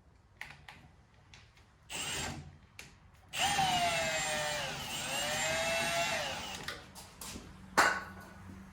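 Drill running a 3-inch hole saw into the workpiece, the motor whining for about three and a half seconds with its pitch sagging under the cutting load and then recovering. Light handling noises come before it, and a sharp click comes near the end.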